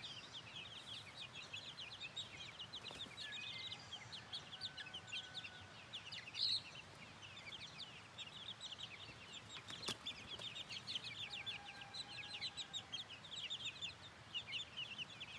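A flock of five-week-old chicks peeping without pause, many short, high, falling cheeps overlapping, with one louder cheep about six and a half seconds in.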